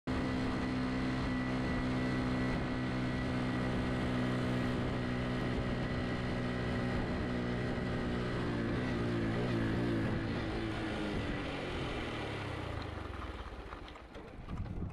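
An engine running at a steady pitch. About two thirds of the way through, the sound wavers, then fades away over the last few seconds.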